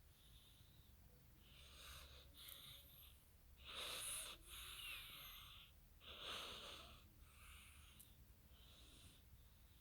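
A sleeping cat snoring: a run of faint, hissy breaths about a second apart, the loudest two about four and six seconds in.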